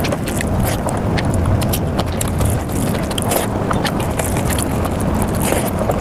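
Close-miked mukbang eating sounds played back at high speed: a rapid, dense stream of wet chewing, lip smacks and squelches from palak paneer and rice eaten by hand, over a steady low rumble.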